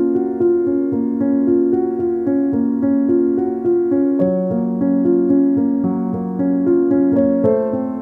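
Background music: a keyboard melody of evenly paced notes over a steady bass line, which steps down about halfway through and back up near the end.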